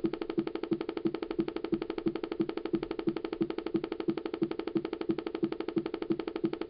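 A 2007 iMac making a pitched, pulsing buzz that repeats evenly about three times a second without changing. This is the unexplained fault noise the machine has started making after waking from sleep.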